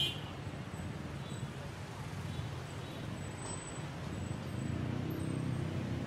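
Steady rumble of passing street traffic, growing a little louder near the end, with one short sharp clink right at the start.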